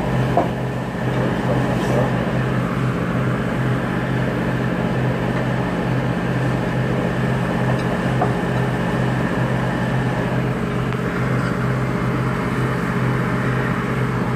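A steady low mechanical hum with a constant drone, unchanging throughout.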